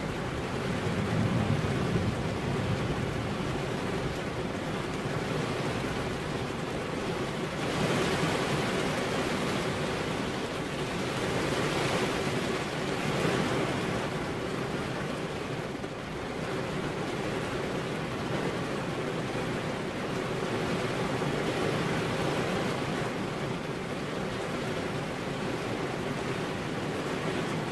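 Steady rain, an even hiss that swells and eases every few seconds, with a low thunder rumble dying away in the first couple of seconds.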